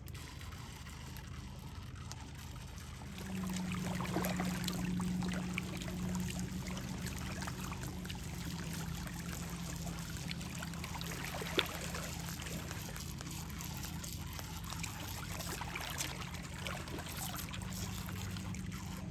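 Small waves lapping and trickling among rocks at the water's edge. A steady low hum comes in about three seconds in, and there is one sharp click near the middle.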